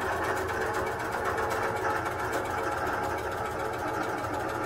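Innova longarm quilting machine stitching steadily, its needle running a long basting stitch down the side edge of a quilt loaded on the frame.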